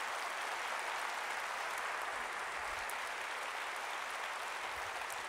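Large audience applauding steadily at the close of a speech.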